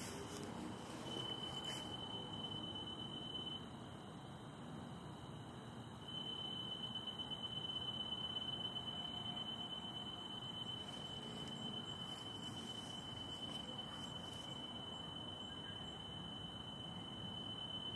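A steady, thin high-pitched tone of unknown source over faint background hiss. It drops out for a couple of seconds near the start, then comes back and holds.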